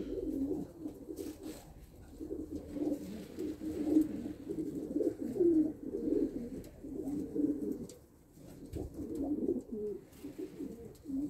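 A loft full of racing pigeons cooing, many low coos overlapping throughout, with a short lull about eight seconds in.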